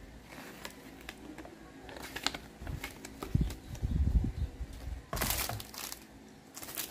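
Unboxing handling sounds: paper leaflets rustling and ticking against each other, heavy low bumps against the cardboard box around the middle, then a short crinkle of plastic wrap about five seconds in as the sealed tablet is lifted out.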